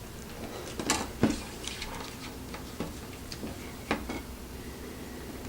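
Plastic straw pieces and connectors being pushed together by hand: about half a dozen light, scattered clicks and taps.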